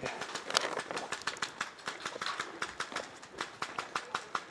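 Footsteps crunching through dry leaf litter: a quick, irregular run of crackling steps.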